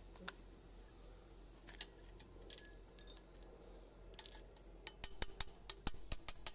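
Steel socket and extension bar clinking against a diesel engine's cylinder head while being set into an injector bore: scattered light metallic clinks, then a quick run of sharp metallic clicks, about five a second, in the last second and a half.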